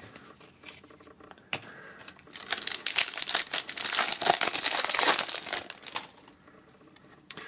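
Wrapper of a Topps Gallery baseball card pack crinkling as it is pulled open by hand, for about four seconds starting some two seconds in, after a single click.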